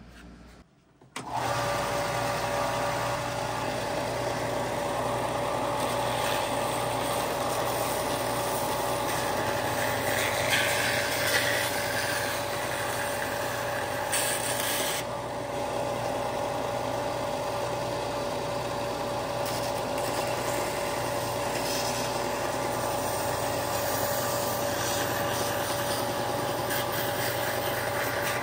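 Stationary 4x36-inch belt sander running with a steady motor hum, sanding body filler off a hand-held body shell. It starts about a second in, and its rasping hiss grows at times as the piece meets the belt.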